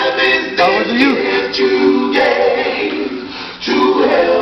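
Vocal music: several voices singing together, holding notes and moving between them, like a choir.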